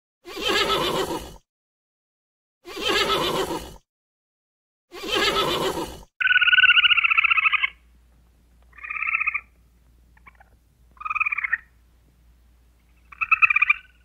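A horse whinnies three times in short, evenly spaced calls of about a second each. After about 6 s, a red squirrel gives four high, buzzing, trilled calls, the first and longest just after the switch and the last near the end.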